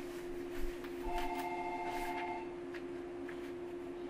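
Cabin of a JR 115-series electric train car, quiet with no running rumble: a steady electrical hum from the car's equipment with scattered light clicks. About a second in, a two-tone electronic beep sounds for about a second and a half.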